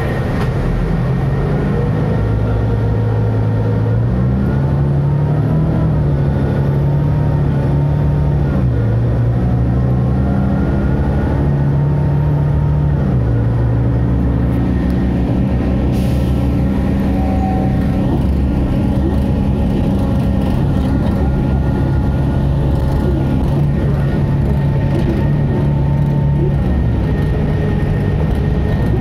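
Doosan GL11K 11.1-litre inline-six CNG engine of a Zhongtong LCK6180GC articulated bus running under way. Its note rises and drops in steps several times as the Allison T375R six-speed automatic changes gear, with a fainter higher whine following the engine speed.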